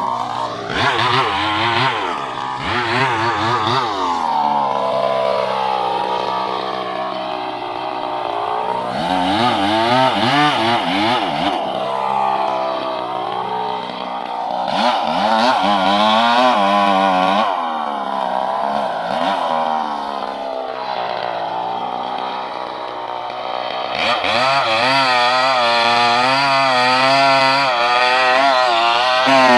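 Chainsaw running, its engine pitch rising and falling again and again as it is revved and eased off. From about 24 seconds in it holds a higher, steadier pitch with more rasp.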